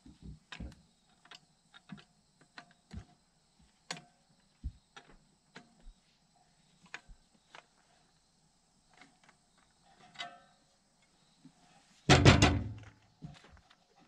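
Scattered clicks and knocks of hand tools and metal hardware as the clamping mechanism of an RV propane-bottle rack is taken apart, with one loud clatter about twelve seconds in.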